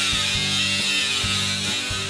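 Small right-angle die grinder whining steadily as its abrasive disc grinds the steel trunk pan floor, under background music with a steady beat.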